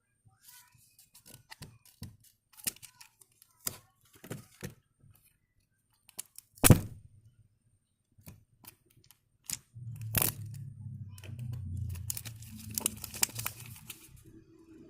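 Packaging being handled and torn open: a string of short tears, rustles and sharp clicks, with one loud crack about seven seconds in. From about ten seconds a steady low hum runs under the continuing crackle.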